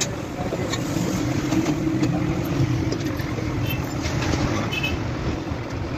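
Steady mechanical hum of a running machine, with a few faint light clicks.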